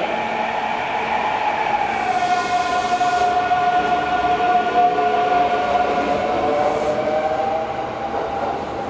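Kintetsu 30000 series Vista EX train with a long, high squeal, steady in pitch apart from a slight waver, and a brief hiss about two seconds in.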